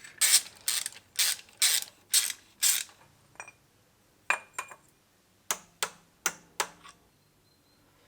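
Hand ratchet wrench turning a bolt in short strokes: six quick ratcheting strokes about half a second apart, a few single clicks, then four more strokes.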